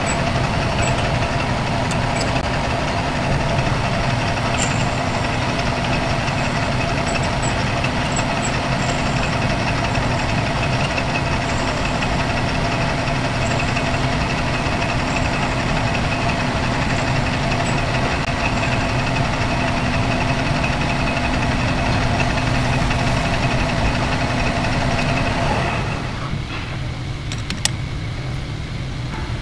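Metal lathe running steadily while turning a brass part, its motor and gearbox giving a steady hum with a held whine. The spindle stops about 26 seconds in, and a single sharp click follows shortly after.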